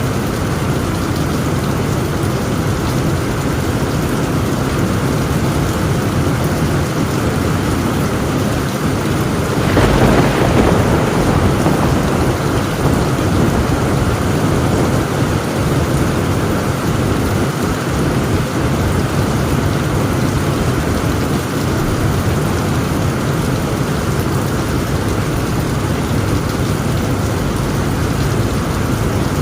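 Heavy rain falling steadily on a tin roof, with a short, louder clap of thunder about ten seconds in.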